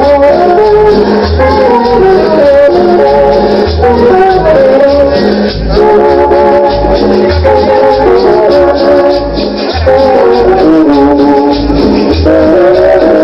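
Loud Latin dance music played back over a sound system: maracas keep up a steady shaking rhythm over a regularly pulsing bass and a moving melody line.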